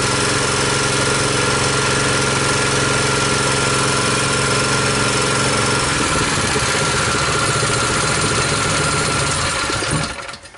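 Brand-new Harbor Freight Predator 212 cc, 6.5 hp single-cylinder four-stroke engine running on its first start, its running note changing about six seconds in, then shut off and dying away near the end.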